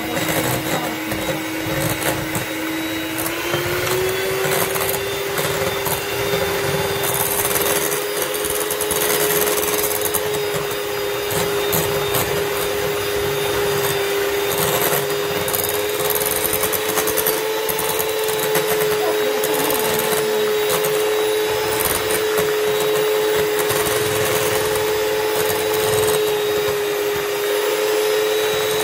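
Electric kitchen mixer running steadily, mixing a cream with dissolved gelatin; its motor pitch steps up about three seconds in and then holds.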